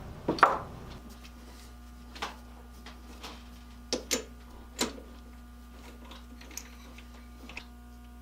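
Scattered sharp clicks and knocks, about six spread irregularly over several seconds, from tools and the workpiece being handled at a wood lathe, over a steady low hum.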